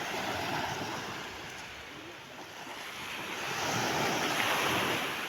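Sea waves washing onto the shore, a steady surf that swells about three seconds in and eases off near the end.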